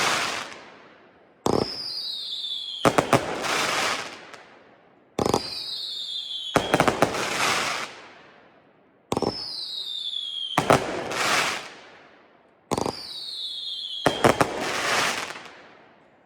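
World Class 'Extreme Machine' firework cake firing shots about every four seconds, four in all. Each shot is a sharp launch thump followed by a falling whistle, then a loud break with crackling that fades away.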